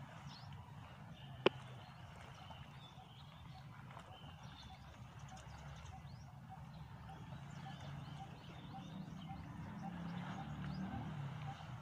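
Waterside outdoor ambience: scattered high bird chirps and a regular ticking call about three times a second from around halfway on, over a low hum that grows louder toward the end. One sharp click comes about a second and a half in.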